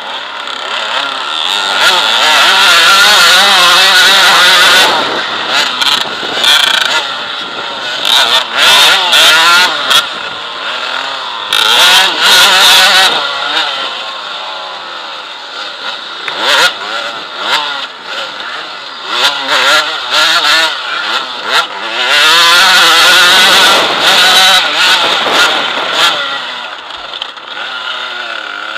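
Enduro motorcycle engine revving up and dropping back again and again as the bike is ridden hard along a dirt trail, loudest in stretches of a few seconds on the throttle.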